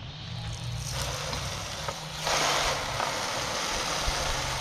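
Hose spray nozzle running water over stainless steel rigging fittings in a plastic tray, rinsing off a stainless steel cleaner. The spray starts about half a second in and gets louder a little after two seconds. A low steady hum runs underneath.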